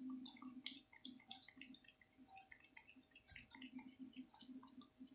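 A cat licking yogurt from a small plastic yogurt cup: faint, quick, irregular wet clicks of the tongue, several a second.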